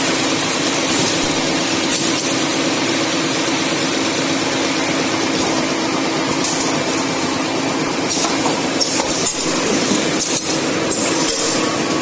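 Wooden coffee stirrer packing machinery running: a steady mechanical hum under dense clattering and hiss, with scattered clicks.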